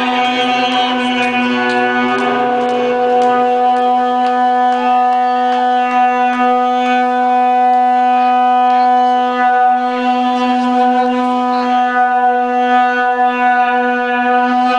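Live band music held on one loud, steady droning note, with a faint sliding tone about two seconds in and light clicks scattered over it.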